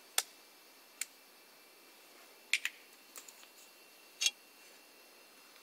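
About six short, sharp clicks and taps, spaced irregularly over quiet room tone, including a quick double click about two and a half seconds in. They come from a small handheld light being handled and switched on to shine into the port.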